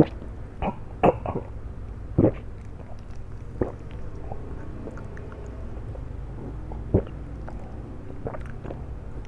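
Mouth sounds of eating flat rice noodles: irregular short chewing and smacking sounds, a few louder ones near the start and about seven seconds in, over a steady low hum.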